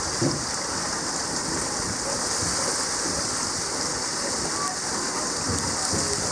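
Steady rushing hiss of water spilling over the rocks into the enclosure pool, with faint voices in the background.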